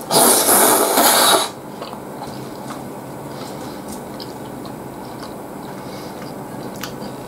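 A loud slurp of ramen noodles lasting about a second and a half, followed by quieter chewing with a few faint clicks.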